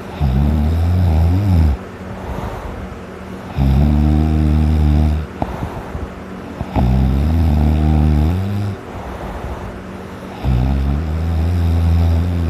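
Loud snoring like a buzz saw: four long, rattling snores about three seconds apart, each lasting under two seconds, with quieter breathing between.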